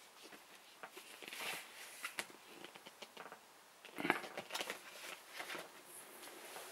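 Cardboard LP sleeve and paper being handled: soft rustling and light taps, with a cluster of sharper taps about four seconds in as the sleeve is set down.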